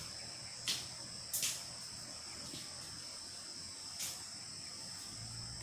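A steady, high-pitched insect chorus drones in the vegetation. A few short, sharp noises cut across it: two about a second in, and one about four seconds in.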